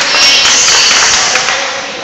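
Gym crowd cheering and shouting after a volleyball point is won. Loud at first, dying down toward the end.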